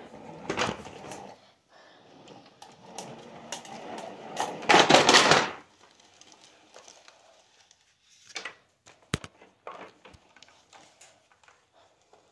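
Handling noises: scattered clicks and knocks, with a loud rustling burst about five seconds in that lasts about a second, then a few faint ticks.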